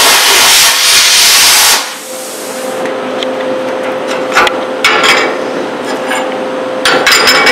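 Plasma cutter hissing loudly as it cuts steel plate, cutting off suddenly about two seconds in. Then cut steel bracket pieces clink and knock a few times as they are handled, over a steady hum.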